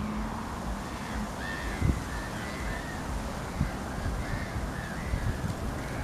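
Waterbirds calling: a run of short arched calls repeated about twice a second, over a low rumble.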